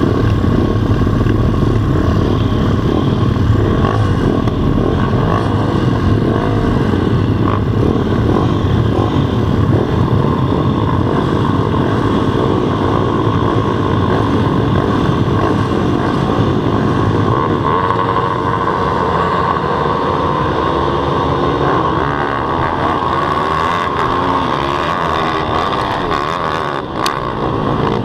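A field of small four-stroke single-cylinder pit bike engines running hard at the starting line. About two-thirds of the way through, the engine notes rise and fall as the bikes accelerate off the start and shift through the gears.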